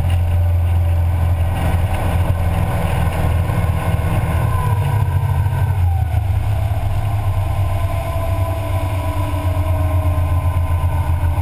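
Twin Mercury 496 Mag V8 engines of a Formula 33 SS powerboat running at speed, a strong steady low drone over the rush of the wake. A thinner, higher tone drops in pitch about halfway through.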